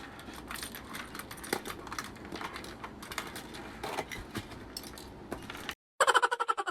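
Small hard plastic objects being handled, with a steady run of light clicks and rattles. Near the end the sound cuts out abruptly, then a loud, rapidly pulsing pitched sound begins, about eight pulses a second.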